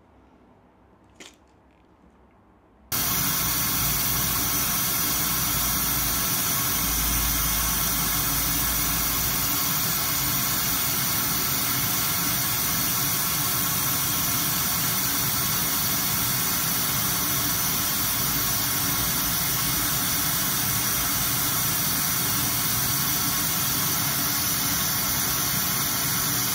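A single click as a power plug is pulled from its socket, then about three seconds in a loud, steady hiss of analogue television static cuts in suddenly and holds.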